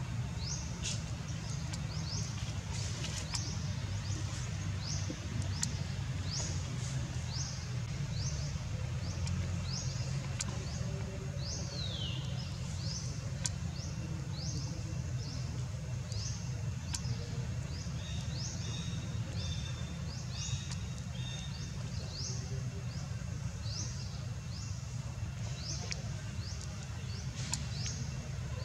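Outdoor ambience: short, high rising chirps repeated about once or twice a second over a steady low rumble, with one falling whistle about twelve seconds in.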